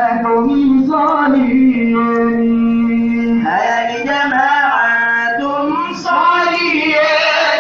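Qaswida, a Swahili Islamic devotional song, sung by a lead singer into a microphone. The voice holds one long note about two seconds in and moves in winding melodic turns around it.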